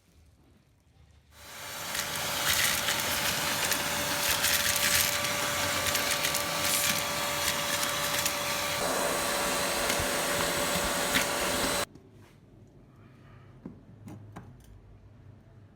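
Ozito 1250 W, 20-litre vacuum cleaner switched on, its motor spinning up within about a second and then running steadily with a hiss and a high whine. It cuts off suddenly about ten seconds later.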